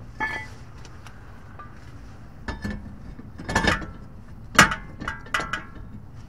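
Brake rotor being handled and slid over the wheel-hub studs: a handful of metallic clinks and clanks, each ringing briefly, the loudest about four and a half seconds in.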